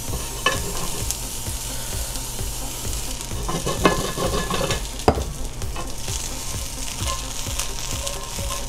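Asparagus spears sizzling as they sauté in olive oil in a hot skillet, a steady high hiss. Metal tongs clatter against the pan as the spears are turned, mostly around the middle, with one sharp knock about five seconds in.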